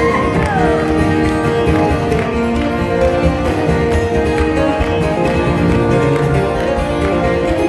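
Two acoustic guitars playing together in a lively country-folk tune, amplified live on stage.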